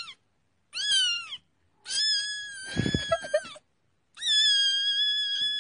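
A kitten meowing, high-pitched: a brief meow at the start, a short one falling in pitch about a second in, then two long, drawn-out meows held at a steady pitch.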